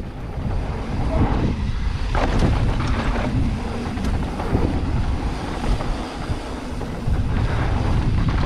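Wind buffeting the microphone of a mountain bike descending a dry dirt trail, with steady rolling noise from tyres and frame and a few sharp knocks over bumps.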